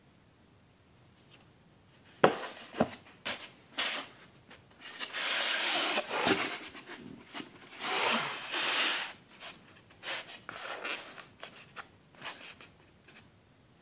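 Handling sounds of a smartphone being laid into a polystyrene foam packaging tray: two sharp clicks a little over two seconds in, then two longer spells of scraping and rubbing around the middle, and lighter taps and rubs near the end.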